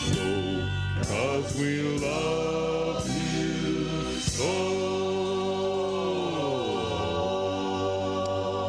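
Birthday medley music: voices singing long held notes in chords over a band. About four seconds in, one chord is held for a few seconds and then slides down in pitch.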